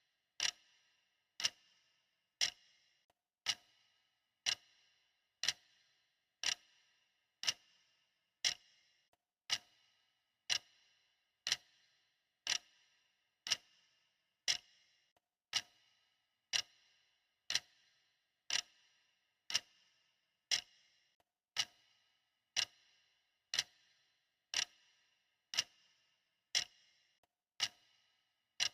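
Clock ticking steadily at about one tick per second, the ticks alternating slightly in loudness as a tick-tock.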